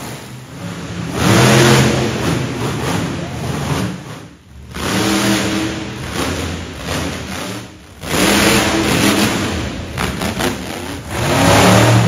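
Monster truck engines revving hard in about four throttle surges, each one rising and then falling away between jumps.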